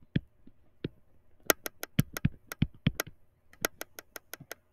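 A run of sharp, irregular clicks and taps in two quick clusters: a stylus tapping and knocking on a touchscreen while handwriting.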